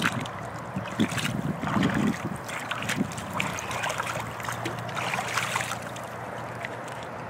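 Splashing in shallow river water as a released catfish kicks away from the bank and hands work in the water, with the splashes thinning out near the end.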